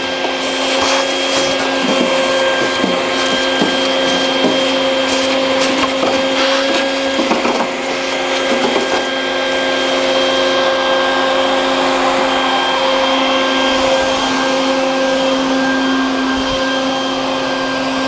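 Shop vacuum running steadily with a motor whine, sucking leaves and debris out of an outdoor air-conditioning unit, with scattered knocks and rattles in the first half.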